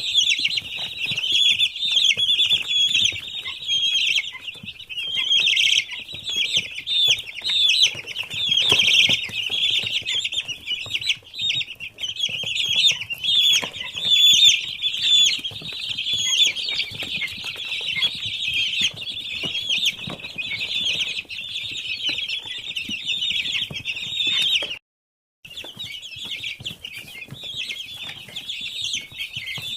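Many week-old chicks peeping together, a dense unbroken chorus of short high chirps overlapping one another, with a brief break to silence about 25 seconds in.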